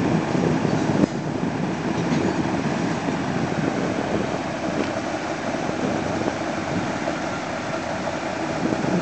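Mobile crane diesel engines running steadily under load, with a short sharp knock about a second in.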